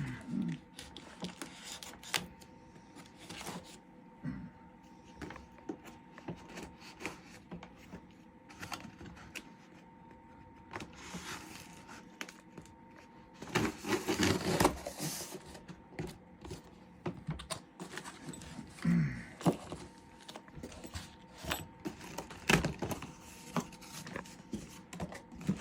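Hands unpacking accessories from a box: packaging rustling, with scattered clicks and knocks as items are handled, and a longer, louder burst of rustling about halfway through.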